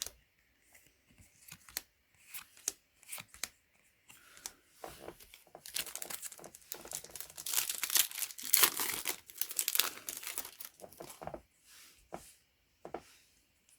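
Yu-Gi-Oh booster pack wrapper being torn open and crinkled, a dense crackling stretch in the middle, with lighter rustles and taps of cards being handled before and after.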